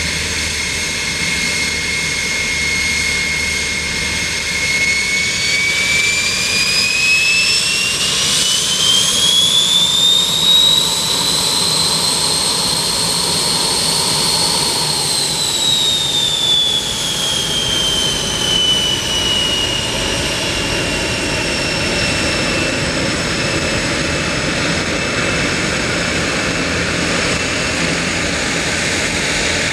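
Delfin L-29's single Motorlet M-701 turbojet running with a high whine that climbs in pitch about five seconds in as it spools up, holds there for a few seconds while getting a little louder, then winds back down to a steady, lower whine.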